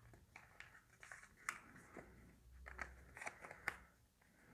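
Sheet of origami paper rustling and crinkling faintly as hands open and refold it into an inside reverse fold, with sharp crackles of the paper creasing, the loudest about one and a half and three to four seconds in.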